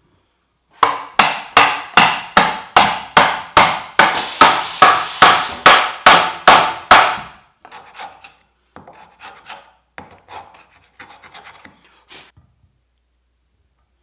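A hand tool working wood in quick, even strokes, about three a second, in a rasping or sawing rhythm. After about seven seconds the strokes stop, and lighter, scattered scraping and tapping on wood follows.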